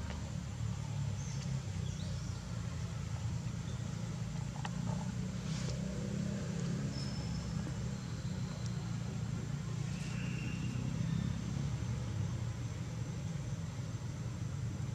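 A steady low rumble, with a few faint clicks and brief high chirps.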